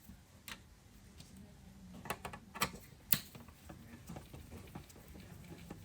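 Hand screwdriver undoing the screws in the base of a Dairymac Superthaw: faint irregular clicks and taps, with a few sharper knocks about two to three seconds in.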